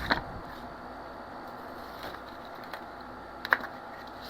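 Cardboard being handled and fitted against a hollow plastic blow mold base: a few short, sharp taps and clicks, one right at the start and the loudest about three and a half seconds in, with faint handling noise between.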